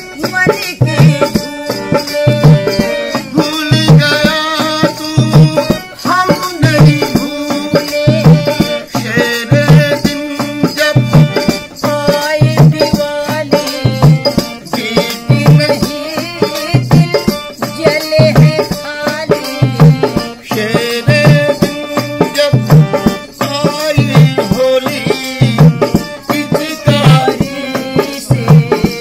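Live Indian folk-style song: a harmonium holds steady chords, a dholak keeps a regular beat, and an elderly woman's singing voice comes in and out over them.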